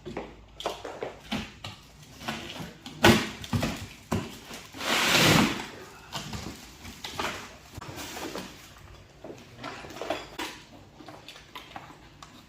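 Unpacking a parts box: scattered knocks and clatter of metal parts and packaging being handled, with a sharp knock about three seconds in and a second-long scraping rustle about five seconds in.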